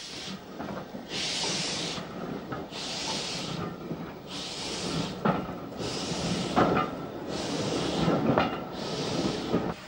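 Steam locomotive working slowly while shunting a goods train: regular exhaust chuffs, about one every second and a half, over the rolling rumble of wagons, with a few sharp metal clanks in the second half.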